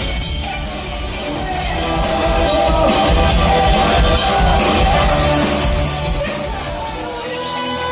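A band playing music, with sustained notes over a steady bass.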